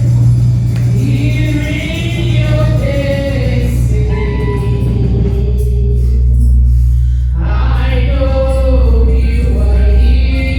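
Gospel choir singing over a steady, heavy bass accompaniment; the voices drop out for a couple of seconds in the middle while the bass holds, then come back in.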